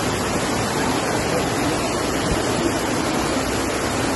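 Floodwater rushing down a street in a torrent under heavy rain: a steady, even rush of water.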